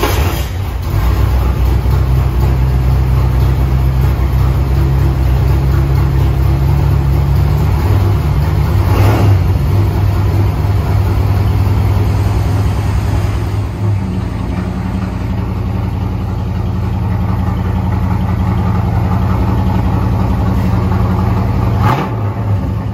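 1984 Chevrolet Corvette's 5.7-litre V8 on a cold start, catching right at the start and then running steadily at a fast idle. It surges briefly twice, and the idle eases a little about two-thirds of the way through.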